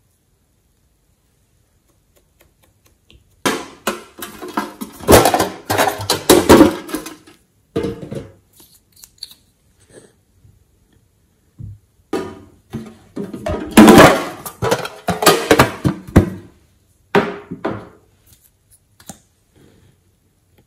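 Fingers squishing and poking slime in a glass tray: sticky, wet clicks and pops in two dense bouts, the first starting about three seconds in and the second after a short pause.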